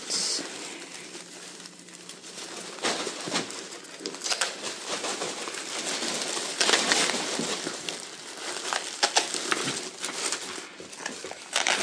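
Shredded newspaper packing filler and a thin plastic bag rustling and crinkling as they are handled and pulled out of a cardboard box, in uneven handfuls with sharp crackles.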